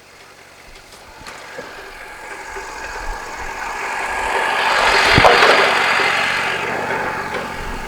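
Wood-Mizer LT40 sawmill running, its steady hum swelling to a peak about five seconds in and then easing off.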